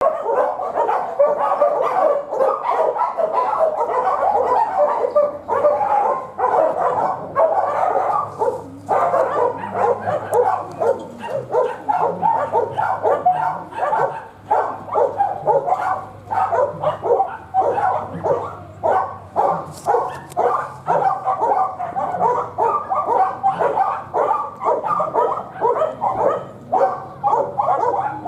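Dogs in kennel runs barking nonstop, several barks a second and overlapping.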